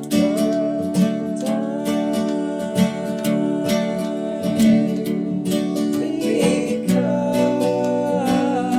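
Acoustic guitar strummed in an even rhythm, with long held wordless vocal notes over it, one lasting most of the first six seconds and another near the end.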